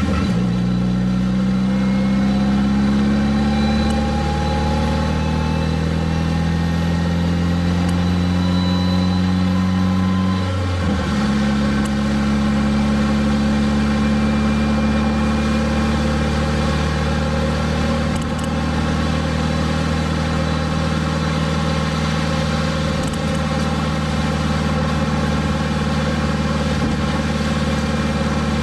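Nissan SR20DET turbocharged inline-four in a D21 pickup running under way, its pitch creeping up for about ten seconds. About eleven seconds in comes a gear change, and after it the engine runs steady.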